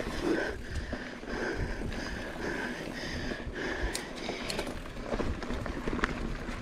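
Mountain bike rolling over a dirt trail: tyre and wind noise with scattered knocks and rattles from bumps in the ground. A faint high tone pulses about twice a second through the first half, then stops.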